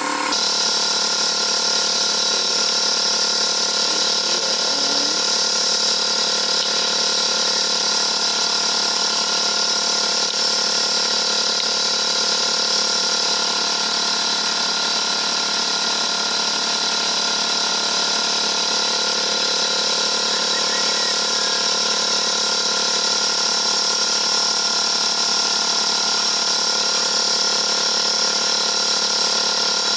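Air compressor running steadily, feeding air through the spark plug port to hold the engine's valve up while the valve stem seal is changed.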